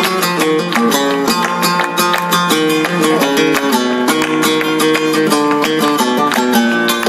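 Flamenco guitar playing a tangos, with rhythmic hand clapping (palmas) keeping the beat.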